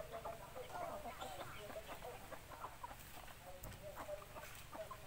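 A flock of chickens clucking while they feed, with many short, overlapping calls throughout.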